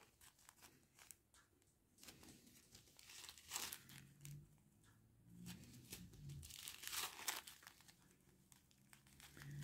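Faint, scattered crinkling of small plastic zip-lock bags of round diamond painting drills being handled and turned over in the fingers, the drills shifting inside.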